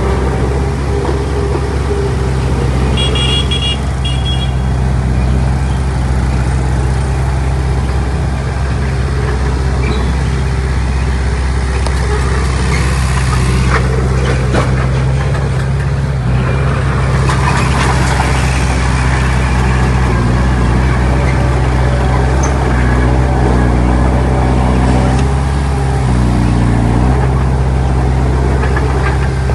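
Heavy diesel earthmoving machinery running steadily under load, with a short run of high beeps about three seconds in.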